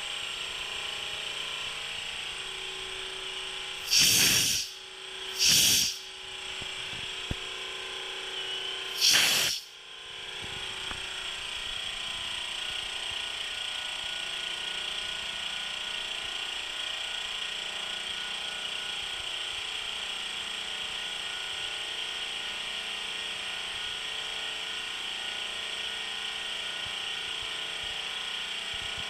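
SMTmax SL-310 oil-free air compressor running steadily, with three short, loud bursts of air hiss at about four, five and a half and nine seconds in as the SML-D100 auto tank drain's solenoid valve is opened with its manual drain button, blowing air and condensate out of the tank.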